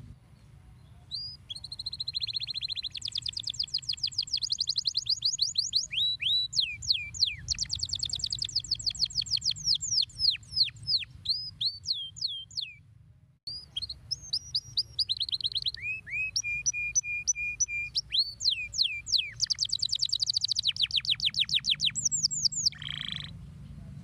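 Domestic canary singing long, fast song phrases: rapid trills of repeated notes, rolls and downslurred whistles, with one steady lower trill. The song breaks off briefly just past the middle, then resumes.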